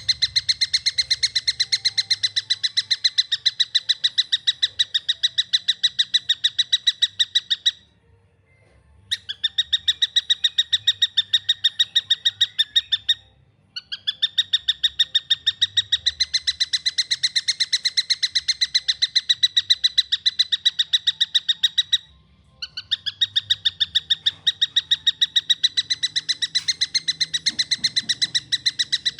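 Juvenile stork-billed kingfisher (tengkek buto) calling in a fast, even chatter of many repeated notes a second, in four long runs separated by brief pauses.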